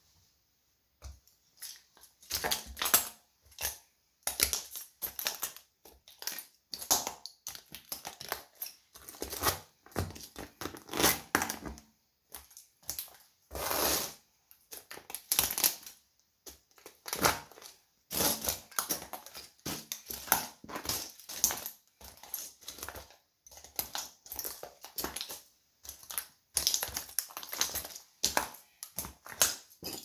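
Broken plastic pieces of a toy train crunching and cracking under Nike Air Force 1 sneaker soles. The crushing comes in repeated, irregular bursts as the shoes press and grind down on the debris, starting about a second in.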